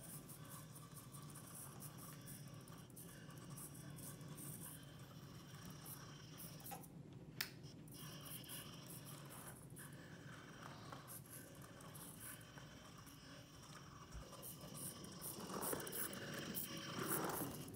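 Faint whirring and scratchy scraping of a micro RC car, a converted 1/64 Hot Wheels diecast with a tiny N10 motor, driving on a tabletop road mat. There is a single sharp click about halfway through, and the sound grows louder near the end as the car comes close.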